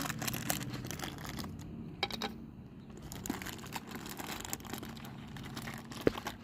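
In-shell almonds handled by the handful and dropped into a wooden feeding dish: a string of small irregular clicks and clatters with rustling.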